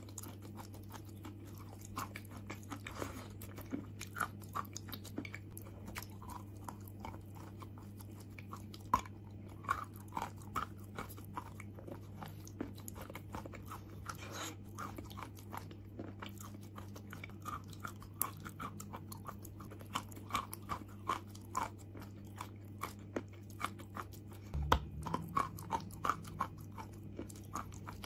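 Close-up mouth sounds of chunks of chalk being bitten and chewed: many small, crisp, dry crunches in irregular clusters, over a steady low hum.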